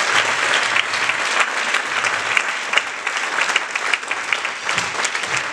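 Church congregation applauding and clapping their hands to acclaim God: a dense, continuous patter of many hands clapping.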